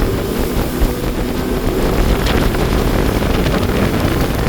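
Speedboat running at speed, its engine rumbling under a steady rush of wind and water, with wind buffeting the microphone.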